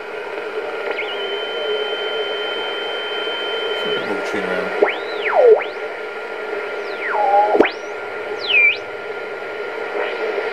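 BC-348-N valve aircraft receiver tuned across the shortwave band with its BFO on: steady band hiss with a faint steady tone, and a held high whistle that gives way, from about four seconds in, to several whistles sweeping sharply down and up in pitch as the tuning knob is turned through signals.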